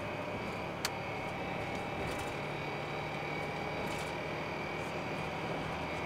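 Steady road noise inside a moving vehicle driving across a steel truss bridge, with a faint steady whine above it and one sharp click about a second in.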